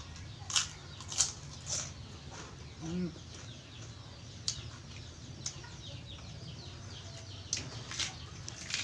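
Mouth sounds of someone eating sticky rice and papaya salad by hand: short sharp lip smacks and chewing clicks, a few close together near the start and again near the end, with one brief low hum about three seconds in.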